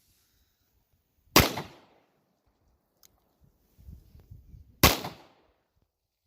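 Two shots from a Taurus Judge revolver firing .45 Colt cowboy loads, about three and a half seconds apart, each with a short echoing tail.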